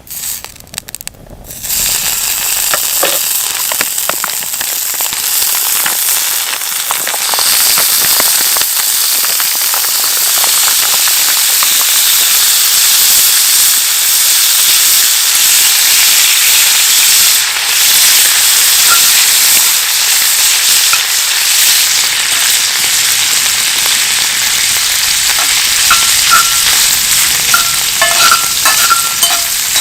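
Food frying in a hot pan over a wood fire: a loud, steady sizzle that starts abruptly about two seconds in, with small pops and spits throughout.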